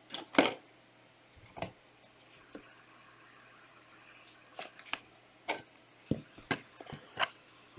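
Trading cards and packs being handled on a table: a few scattered sharp taps and rustles, the loudest right at the start and a cluster near the end, with quiet between.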